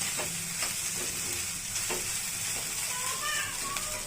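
Cooked rice being stirred in a hot kadai with oil, cumin seeds, green chillies and cashews, sizzling steadily, with a few brief scrapes against the pan.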